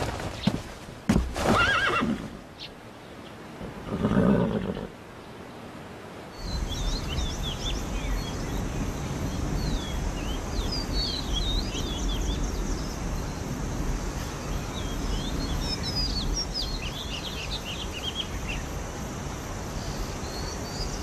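A few sharp knocks, then a horse whinnies about four seconds in. After that a steady outdoor background runs on, with many short bird chirps.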